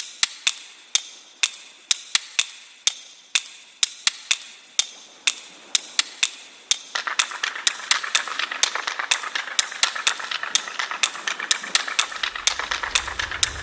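A run of sharp, irregular clicks or taps, about two a second at first and coming faster later, with a hiss building underneath from about halfway through.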